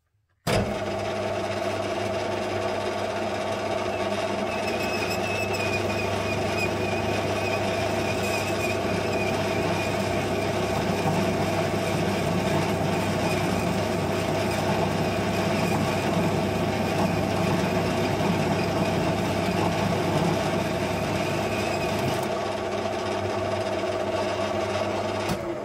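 Metal lathe starting abruptly and running steadily while a parting tool cuts off a stainless steel sleeve, with a thin high whine through the middle of the cut. The lathe is switched off and runs down near the end.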